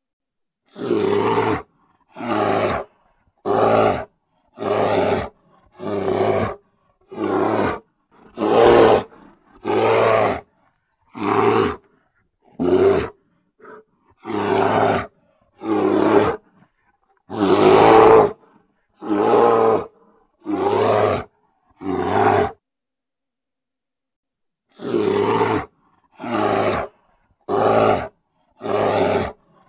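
Grizzly bear vocalising loudly in short calls, each under a second, about one a second, with a pause of two seconds or so about three-quarters of the way through.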